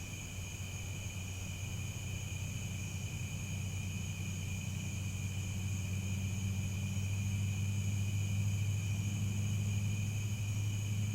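Crickets chirping in a steady, unbroken trill. Beneath them a low rumble grows louder over several seconds and is the loudest sound.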